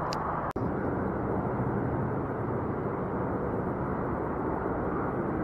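Steady, muffled rumble of city road traffic, briefly cut off about half a second in.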